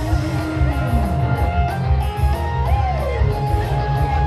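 Loud band music: a lead melody with sliding notes over a steady bass and drum beat.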